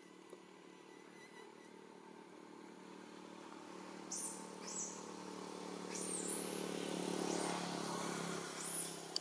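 A motor vehicle's engine humming steadily, growing louder over several seconds as it passes, then easing near the end. Several sharp, high chirping calls sound over it, about four in all.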